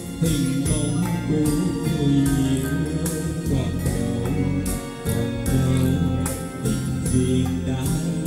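Music: an instrumental passage of a pop song with sustained bass notes and a steady beat.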